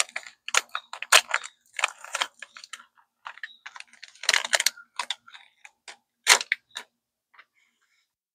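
Crimped-edge wrapper packet being torn open and unwrapped by hand: a run of short crinkles and rustles that dies away near the end.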